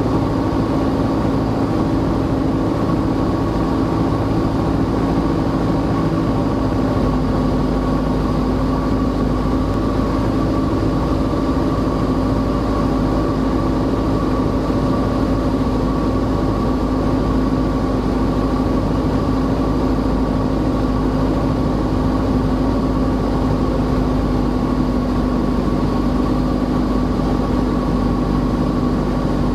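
Symphony SA-160 light aircraft's four-cylinder Lycoming engine and propeller droning steadily on a landing approach. The engine note settles slightly lower about six seconds in.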